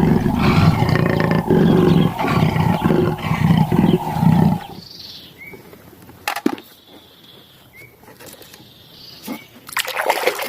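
A big cat roaring, low and loud, for the first four and a half seconds. Then it goes quiet apart from a few faint chirps, and water starts splashing near the end.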